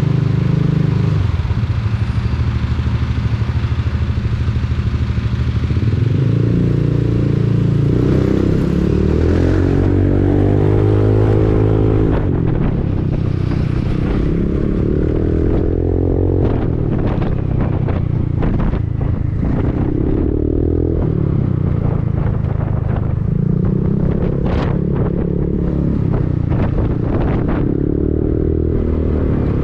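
Honda Forza 300 scooter's single-cylinder engine through an Arrow aftermarket exhaust, running on the move. Its pitch rises and falls several times as the throttle is opened and eased off.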